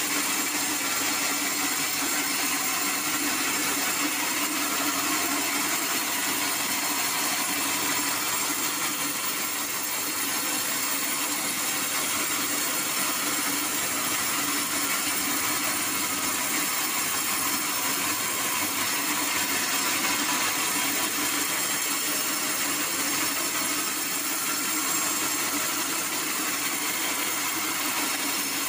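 Band sawmill blade cutting through hard acacia wood: a steady sawing noise over the running motor, unchanged throughout.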